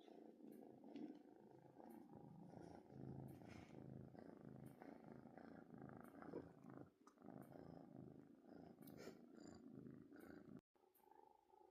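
Domestic cat purring close to the microphone, a quiet, steady rhythmic rumble; it cuts out abruptly near the end and carries on fainter.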